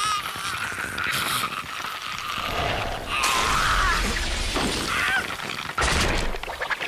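A man screaming in agony, a long wavering cry broken by sharp cracking crashes about a second in, about three seconds in and again near the end.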